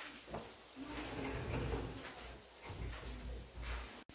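Water hissing from a garden hose spray nozzle and spattering onto a bed of gravel screenings, with some low rumbling underneath. The screenings are being soaked so they settle before tamping.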